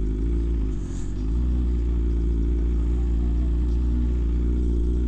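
Motorcycle engine running at low, steady revs as the bike rolls slowly, with a low rumble; it gets slightly louder a little over a second in.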